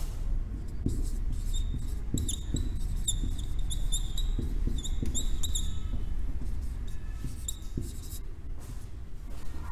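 Marker pen squeaking on a whiteboard while writing: a quick run of short, high squeaks, then a few more strokes after a pause.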